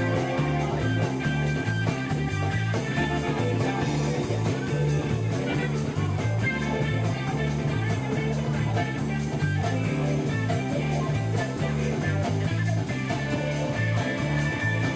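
Live instrumental rock jam: guitar playing over a repeating low riff and a steady, even beat.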